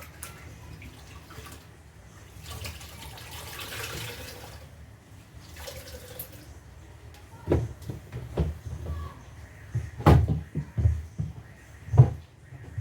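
Water splashing and trickling in a washing basin, followed by a series of irregular knocks and clunks, the loudest two about ten and twelve seconds in.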